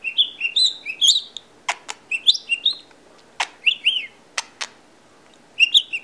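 Budgerigar whistling and chirping in quick runs of short, high notes, with a few sharp clicks in between. The whistling pauses for about a second near the end, then starts again.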